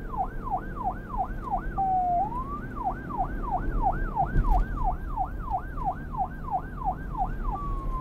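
Police car siren wailing in a fast yelp, its pitch sweeping up and down about three times a second. Around two seconds in it breaks into a slow falling tone and a rising swoop before the yelp resumes, and it drops into a slow falling tone again at the very end.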